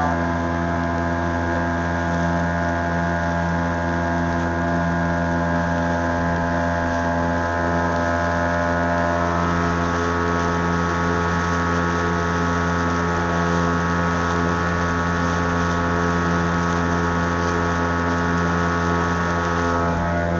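A small boat's motor running steadily at an even speed while under way.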